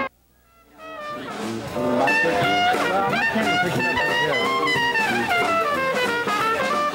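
Band music led by brass horns, with trumpet and trombone. After a short click and a moment of near silence, it fades in about a second in and reaches full level soon after.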